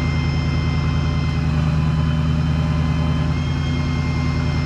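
Diesel engine running steadily at a constant speed, deep and even, with a few faint steady high tones over it.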